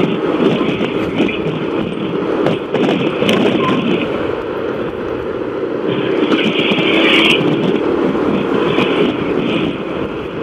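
Steady wind and road noise of a motorcycle riding along a street, with no voices.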